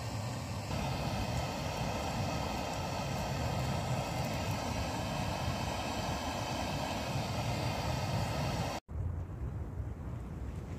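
Portable gas tent heater burning with a steady hiss and rumble. Near the end it cuts off abruptly and a duller, steady rumble follows.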